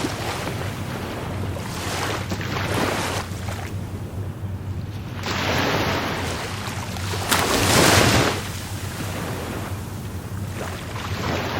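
Rough sea surf: waves breaking and washing ashore in repeated surges of noise, the biggest break about two-thirds of the way through.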